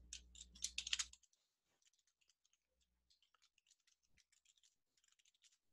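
Computer keyboard being typed on: a quick run of faint key clicks in the first second, then sparse, very faint keystrokes.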